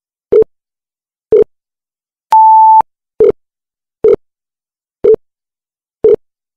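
Countdown timer sound effect: a sharp tick about once a second, with one short steady beep about two seconds in.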